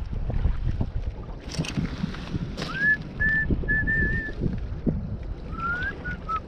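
A person whistling a slow tune in two short phrases of held and gliding notes, the second phrase lower. Underneath, wind rumbles on the microphone and footsteps crunch now and then on gravel and broken glass.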